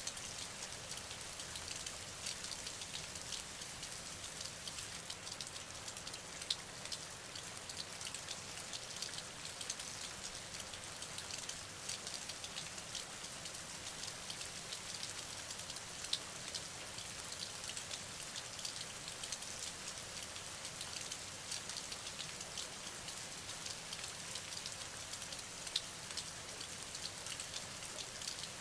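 Steady rain falling: a fine, even patter of many drops, with a few louder single drops standing out now and then.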